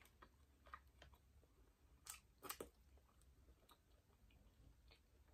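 Very quiet chewing of soft food, a seasoned boiled potato, with a few short mouth smacks, the clearest about two and two-and-a-half seconds in.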